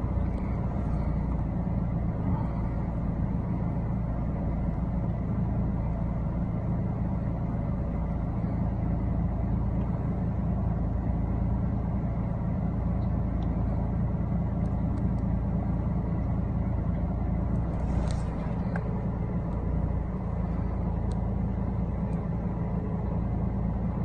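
Car engine idling, heard from inside the cabin of the stationary car: a steady low hum.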